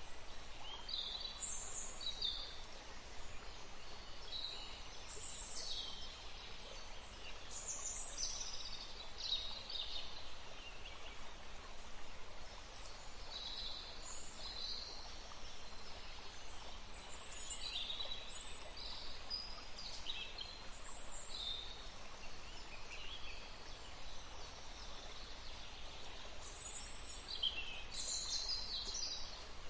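Wild birds singing and calling, many short high chirps and phrases scattered throughout, over a steady rush of running water.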